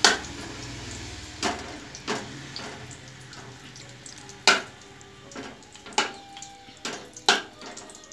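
A perforated metal skimmer knocking and scraping against an aluminium pan in a series of sharp, irregular taps as it pushes lumps of solid vegetable ghee around, over a faint steady sizzle of the ghee melting on the gas flame.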